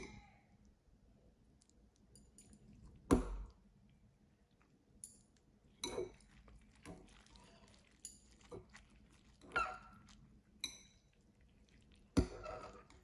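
Chewing with scattered clicks and clinks of utensils on a dish, spaced by quiet gaps; the loudest click comes about three seconds in.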